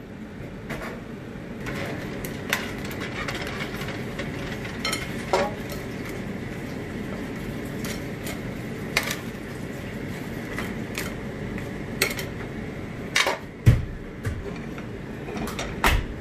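Cooked crabs being taken out of a wok: scattered clinks and knocks of metal and crab shell against the wok, the loudest near the end, over a steady background hiss.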